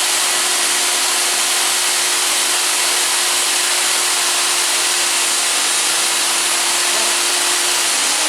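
Table saw running at full speed with a steady, loud whine and hiss. Near the end the motor's hum begins to drop in pitch as it slows.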